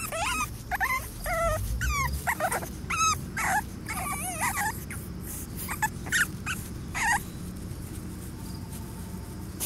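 Eight-week-old Boston terrier puppies whimpering: a string of short, high-pitched cries that bend in pitch. The cries come close together at first, thin out after about five seconds and stop about seven seconds in.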